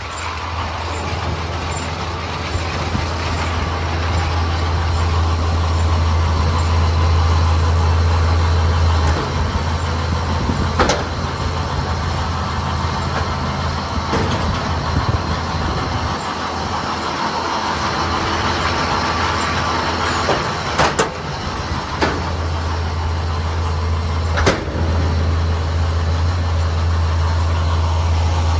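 Tractor running a John Deere 560M round baler: a steady low engine drone with the baler's machinery running, the drone easing off for a few seconds midway and coming back. A few sharp clanks, one about a third of the way in and several more in the second half.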